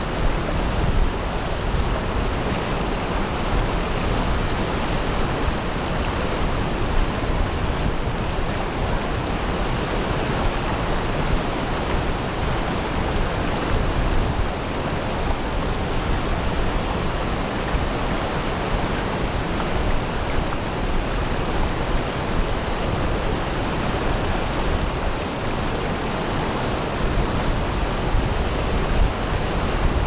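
Mountain stream flowing over a stony bed and small rapids, a steady, unbroken sound of running water.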